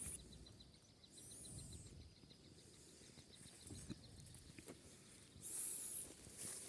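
Faint birdsong outdoors: two short, high, warbling phrases, one about a second in and one near the end, over a fast run of faint high ticks in the first few seconds.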